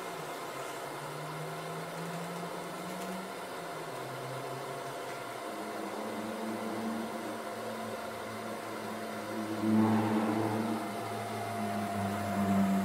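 12-volt, 100 mm five-blade electric bilge blower running steadily, a low whirring hum, as it keeps an inflatable pylon blown up. The hum shifts in pitch now and then and swells briefly about ten seconds in and again near the end.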